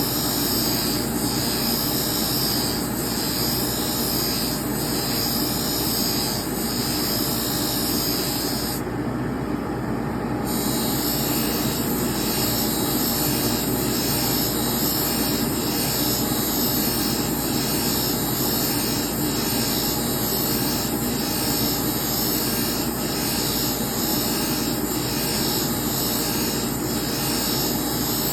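Micron 2 knife sharpening machine running with a steady motor and grinding hiss and a faint regular pulse a little under once a second. About nine seconds in, the high hiss drops out for a second and a half, then returns.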